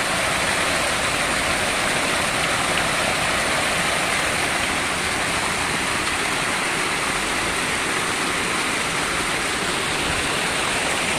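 Small waterfall pouring into a shallow stream: steady rushing, splashing water.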